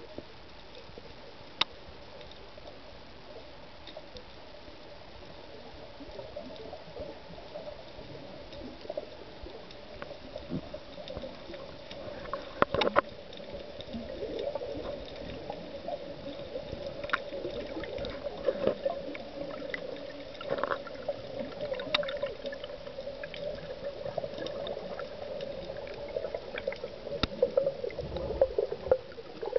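Underwater ambience during a freedive: a steady low hum with scattered sharp clicks and crackles, growing louder and busier in the second half, with gurgling bubbles near the end.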